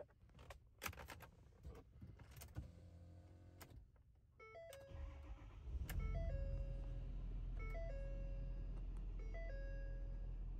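Keys rattling and clicking, then a dashboard warning chime, a two-tone ding repeating about every second and a half. About five seconds in, the 6.7L Power Stroke V8 turbo diesel of a 2013 Ford F-250 cranks and starts, then idles steadily under the chimes.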